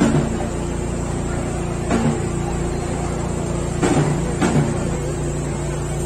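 Procession band playing a slow funeral march: held low brass notes with several bass drum strokes, the chord changing at the strokes.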